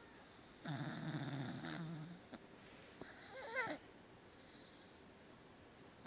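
Sleeping beagle snoring: one low snore lasting about a second and a half, then a brief wavering whistle on the breath near the middle.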